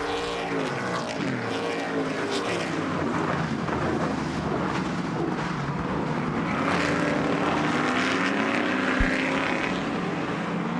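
Several Stadium Super Trucks race-truck engines running hard, the engine note dropping steeply in the first second, then climbing again several seconds later as the trucks come off the throttle and accelerate again. There is a single short knock near the end.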